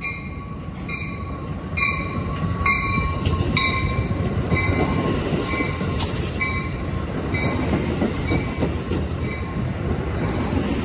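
Amtrak Capitol Corridor bilevel passenger train pulling into the station close by, its cars rumbling past on the rails. A sharp high ringing repeats about once a second and fades in the second half.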